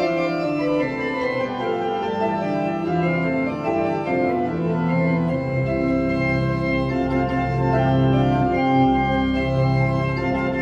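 Church pipe organ played in a free improvisation: held chords over a sustained bass, the harmony shifting every second or so, with deeper bass notes coming in about halfway through.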